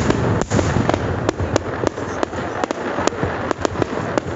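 High-altitude aerial firework shells bursting in quick, irregular succession, several sharp bangs a second over a continuous rumble of the display.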